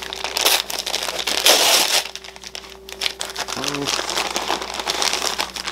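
Brown paper mailer envelope rustling and crinkling as it is pulled open and handled, in a run of uneven crackles, loudest about a second and a half in.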